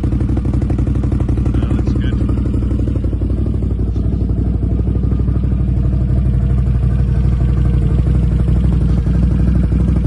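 Can-Am Outlander XMR 850's Rotax V-twin engine idling steadily, with an even, rapid low pulse.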